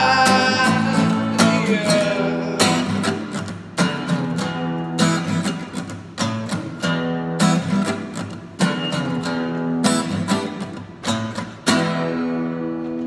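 Acoustic guitar strummed in steady chords, with a man's singing voice on a sliding note at the start. Near the end a last strummed chord is left to ring out and fade.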